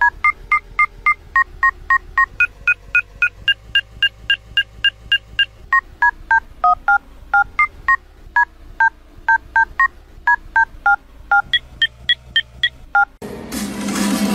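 iPhone dial-pad tones (DTMF), keys pressed in quick succession at about three or four beeps a second, each a short two-tone beep, with the pitches stepping up and down to pick out a tune. They stop abruptly near the end, where music cuts in.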